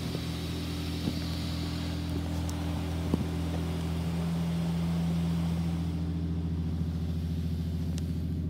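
A Wash World automatic car wash's spot-free rinse spraying water onto the car, heard from inside the cabin over a steady low hum of the wash machinery. The spray hiss dies away about six seconds in while the hum carries on.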